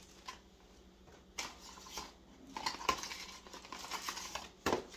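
A small cardboard product box being unpacked by hand: paper rustling and the box clicking and tapping as it is handled, with a louder thump near the end.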